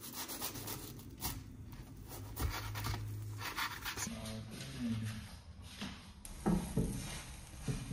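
Kitchen knife sawing through the toasted crust of a grilled cheese sandwich on a cutting board, with repeated crisp scraping rasps.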